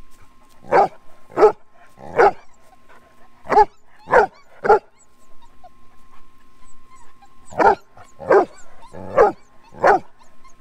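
A dog barking: about ten short barks, six in the first five seconds, then after a pause of nearly three seconds four more.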